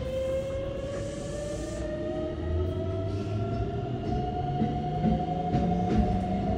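Keikyu 600 series Mitsubishi GTO-VVVF inverter and traction motors accelerating from a stop, heard inside the car: several whining tones rise slowly in pitch as the train gathers speed, with a lower hum stepping up beneath them.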